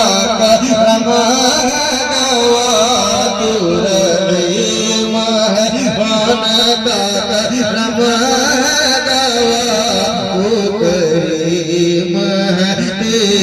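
A man's voice singing a naat in long, wavering melismatic phrases with no clear words, over a steady low drone.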